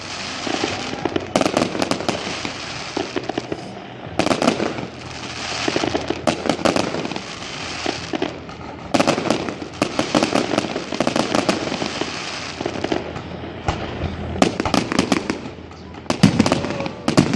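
Fireworks display: volleys of sharp bangs and crackling every few seconds.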